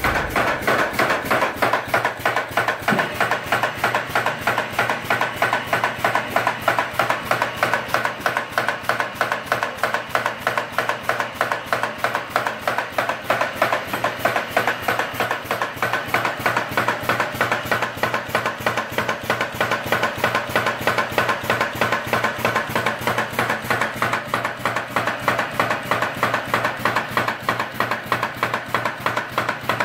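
Dog-chew extrusion line machinery running: a fast, even mechanical clacking, several strikes a second, over a steady low hum.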